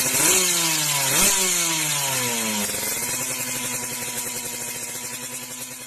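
Motorcycle engine revved twice, its pitch dropping back after each rev, then running steadily while slowly fading out.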